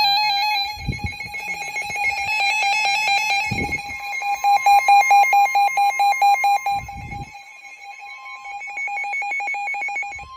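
Several NOAA weather radios sounding their alert alarms at once for a severe thunderstorm warning: overlapping electronic beeping and warbling tones, with rapid pulsing beeps through the middle and a steady higher tone joining about four seconds in. Three short low thuds come about one, three and a half and seven seconds in.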